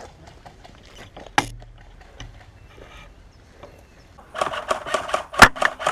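Airsoft gunfire: one sharp shot about a second and a half in, then a rapid, irregular clatter of shots near the end, with one loud crack among them.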